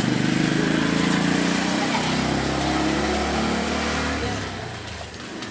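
A motor vehicle's engine running close by, then fading away about four and a half seconds in.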